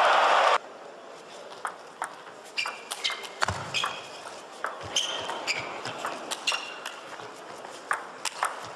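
Table tennis rally: the celluloid ball clicking sharply off the bats and the table in an irregular series of pings, echoing in a large hall. It opens with a brief burst of crowd applause that cuts off suddenly after about half a second, and there is one low thud about three and a half seconds in.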